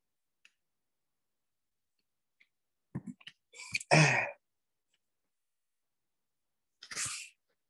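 A lecturer's breathing close to the microphone, with the line otherwise silent: a few small clicks about three seconds in, then an audible exhale just before four seconds, and a shorter breath near seven seconds.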